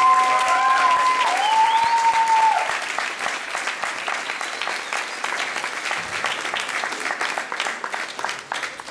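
Audience applause, loudest over the first few seconds, then thinning to scattered clapping.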